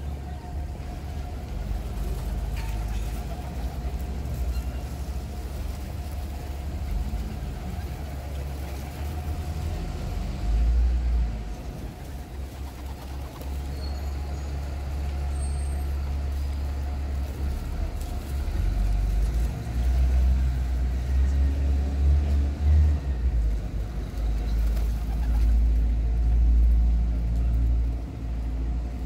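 Low rumble of city outdoor background noise, swelling louder several times, with a faint steady hum.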